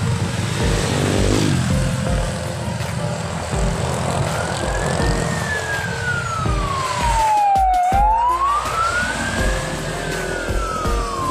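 Emergency vehicle siren in a slow wail, starting about four seconds in and rising and falling twice, over background music with a steady low beat.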